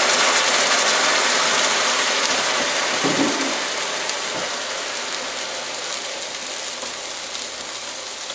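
Hot risotto rice sizzling and hissing in the pan as dry white wine is poured in to deglaze it. The hiss slowly dies down as the wine boils off.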